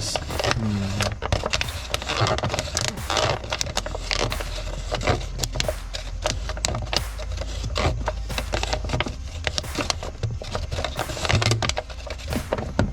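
A plastic party cup crackling and scraping against a car's spin-on oil filter as it is twisted by hand, in irregular clicks and rubs, while trying to unscrew the filter.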